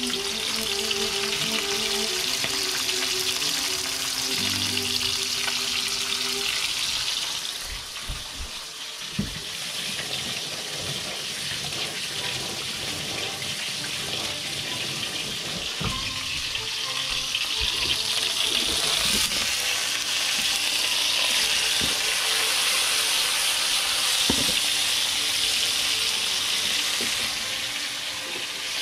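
Food sizzling in a frying pan: a steady hiss with a few sharp knocks, likely a utensil against the pan. Background music with held notes plays over the first several seconds.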